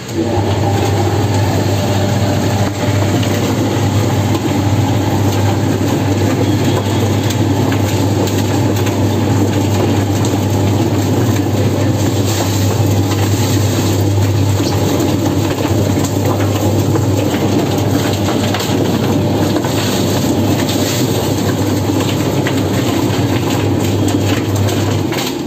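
Electric rotary chicken plucker running: a steady motor hum with the drum spinning and rattling as a chicken tumbles against the rubber plucking fingers. It stops abruptly near the end.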